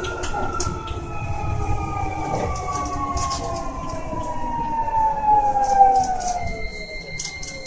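Keio 1000 series (renewal car) VVVF inverter whine: several tones fall steadily in pitch together as the train slows to a stop, then fade out near the end. Heard from inside the car.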